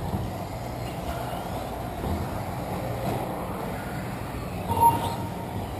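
1:10 2WD stock electric off-road RC buggies racing, with a steady mix of motor and tyre noise. A single short, loud beep sounds about five seconds in.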